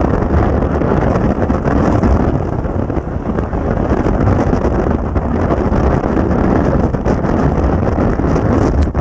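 Strong wind buffeting the microphone: a loud, steady rumble heaviest in the low end, with small gusty dips in level.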